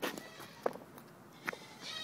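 Puppy in a plastic cone collar moving on pavement, with a few light knocks and scuffs, then near the end a high-pitched whine from the puppy begins.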